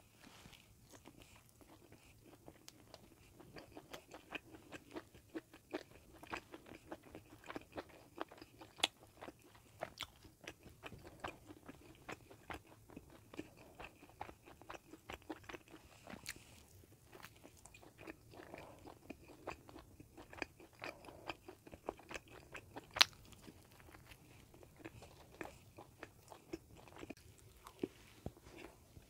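Close-miked chewing of a bagel sandwich: a steady run of small crunchy clicks and mouth sounds, with one sharper click about three quarters of the way through.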